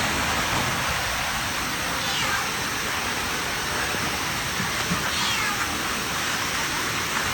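Steady rushing water, with a cat meowing faintly three times over it.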